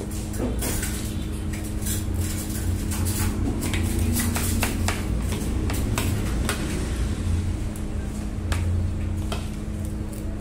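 Metal spoon and fork clinking and scraping against a soup bowl and rice plate while eating, in irregular sharp clicks, over a steady low hum.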